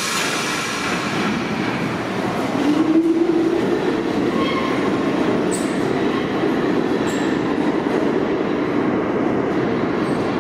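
New York City subway train pulling out of the station: steady wheel and motor rumble echoing in the tunnel, with a short rising motor whine about three seconds in.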